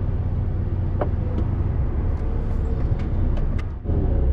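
Steady low rumble of a lorry's diesel engine and road noise heard inside the cab, moving slowly in congested traffic, with a few faint clicks and a brief dip just before the end.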